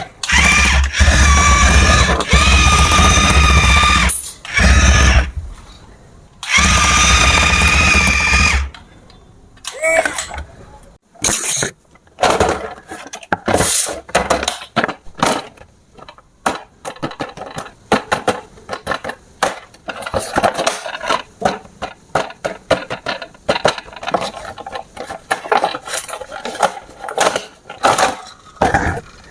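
Small electric motors and plastic gearboxes of a toy remote-control construction vehicle whirring in two long runs, then many short start-stop bursts of whirring as the controls are worked in quick taps.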